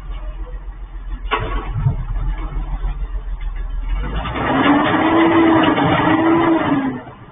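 Garbage truck running, with a sharp knock about a second in. Then for about three seconds a loud rush with a hydraulic whine that rises and holds level as its lift or packer works, before cutting off near the end.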